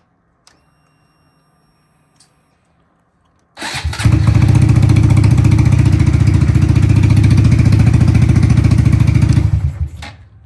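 Motorcycle engine starting about three and a half seconds in, running at a loud, steady idle for about six seconds, then shut off.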